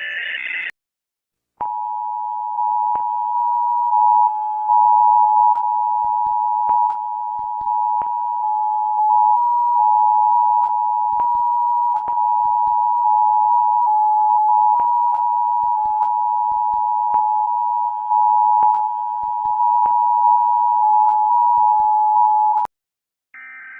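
Emergency Alert System attention signal: two steady tones sounding together, held for about 21 seconds, with scattered faint clicks over it. It opens with a short burst of buzzing data noise at the very start.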